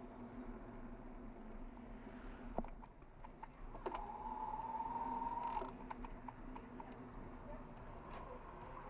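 Bicycle ride, likely on an e-bike: a steady electric-motor hum with light rattling and clicks as the bike rolls over brick paving, and a brief steady whine for about a second and a half midway.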